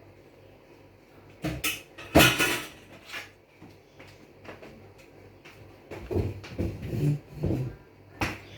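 A few sharp knocks and clatters of dishes and utensils being handled and set down, the loudest about two seconds in, with more scattered handling noise in the last few seconds.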